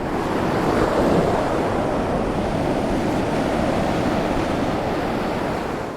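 Steady rushing noise of flash-flood water, swelling in at the start and fading out near the end.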